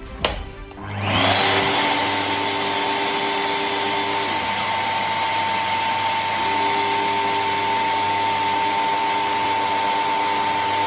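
JIMMY JV35 handheld mattress vacuum cleaner switched on with a click, its motor spinning up about a second in and then running steadily with a constant whine.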